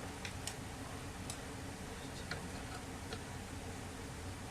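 A few faint, irregular clicks and taps of a screwdriver and small plastic clock parts being handled during a teardown.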